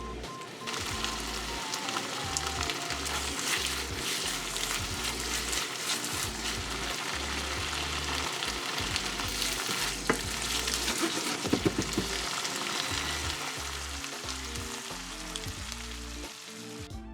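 Ground meat sizzling in oil in a frying pan, starting about a second in, with occasional clicks of stirring, over background music.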